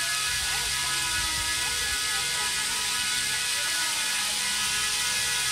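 Garden fountain water jetting and falling in a steady hiss, with a steady mechanical hum under it.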